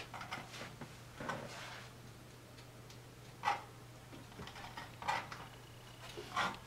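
Scattered light clicks and taps over a steady low hum, a few sharper clicks standing out; the last of them comes as a cat rises up with its front paws on the dresser beside a plastic hamster cage.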